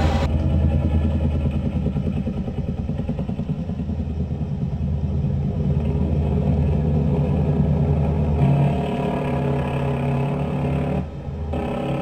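Steady low drone of aircraft engines with a rapid low flutter in it, dipping briefly near the end.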